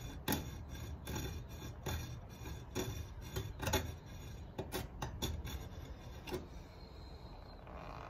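A small file rasping in short, gentle strokes across the steel spine of a machete, its corner cutting a thumb-grip groove. The strokes come about two a second and stop about six seconds in.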